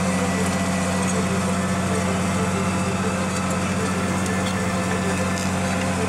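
Fiat Hitachi FD175 crawler dozer's diesel engine running steadily under load while the blade pushes soil and wood debris, with a few faint clicks and snaps among it.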